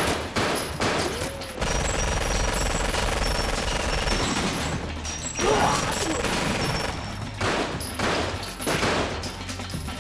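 Film gunfire sound effects: a long sustained burst of automatic fire, with single shots before and after it. A man's shout cuts through about halfway.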